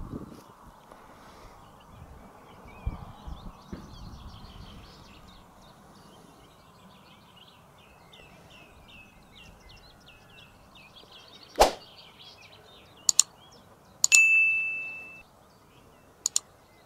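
Animated 'like' button sound effects: a sharp swish, a pair of mouse clicks, a bright bell ding that rings on for about a second, then two more clicks near the end. Underneath, high bird chirps over faint outdoor background noise.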